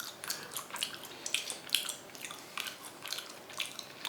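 Close-up wet chewing of raw chicken: short moist smacks and clicks of the mouth, roughly three a second.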